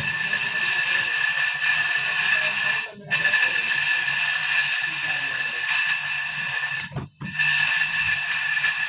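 Grinding wheel sharpening the teeth of a bandsaw blade: a loud, steady, high grinding hiss that cuts out briefly about three seconds in and again about seven seconds in.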